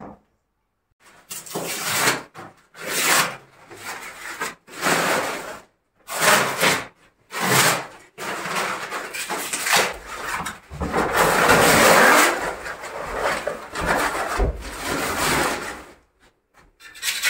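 Old wallpaper being torn and scraped off a wall: a series of separate ripping and scraping strokes, then a longer, almost unbroken stretch of scraping for several seconds.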